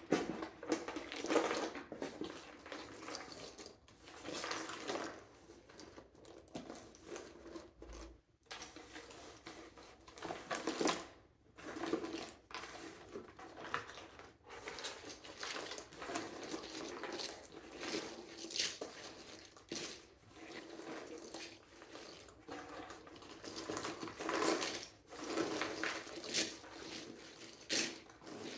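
Cardboard jigsaw puzzle pieces being handled on a table: quick, irregular clicks and light clatter, with a faint steady hum underneath.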